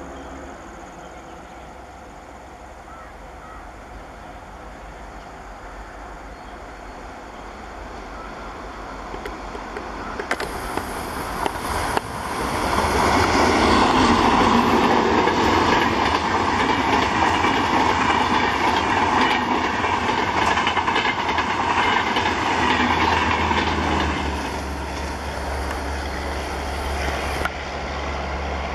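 WAP-7 electric locomotive and Double Decker Express coaches approaching and passing at speed: a rising rumble, then a loud, steady rush of wheels on rail for about ten seconds, easing off as the train goes by.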